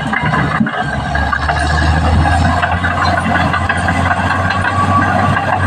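Caterpillar D6R XL bulldozer's diesel engine running steadily, with a dense clatter over it throughout. The low engine note dips briefly less than a second in and then comes back.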